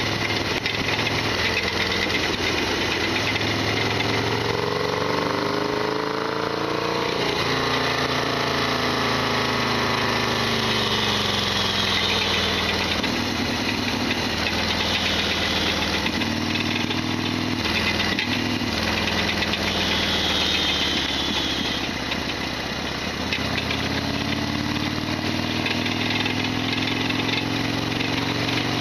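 Harley-Davidson Sportster XL1200R's air-cooled V-twin running under way, its pitch climbing and dropping several times with throttle and gear changes, the rise from about 4 s cut off by a sudden drop around 7 s. Its rattling, clattering mechanical noise is the loud abnormal noise the owner complains of.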